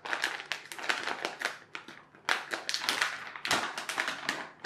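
Plastic puzzle pouch crinkling and crackling as hands open it, a quick irregular run of crisp rustles.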